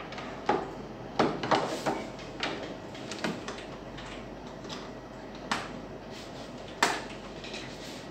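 Handling noise: a string of short, sharp clicks and knocks as a power adapter and its cable are handled and the plug is pushed into a wall socket. The sharpest knock comes near the end.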